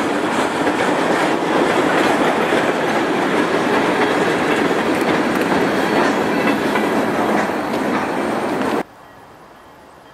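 Freight train of tank cars and a boxcar rolling past close by, steel wheels running on the rails in a loud, steady rush. The noise cuts off abruptly about nine seconds in, leaving a much fainter background.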